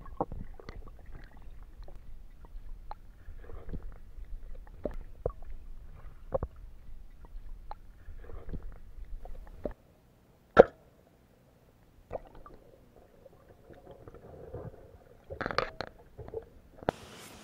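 Underwater sound picked up by a camera during spearfishing: a muffled low rumble with many scattered clicks and knocks, then a pause broken by one sharp snap. More clicks and a short gurgling burst follow, and near the end it gives way to a steady hiss.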